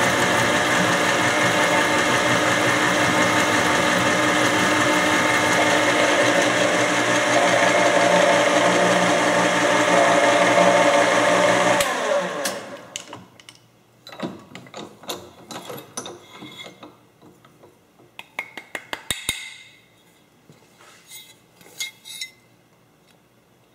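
Milling machine running a 3/4-inch four-flute end mill through extruded aluminum, a steady loud whir of spindle and cutting. About twelve seconds in the spindle winds down with a falling pitch and stops, followed by scattered light metallic clinks and taps.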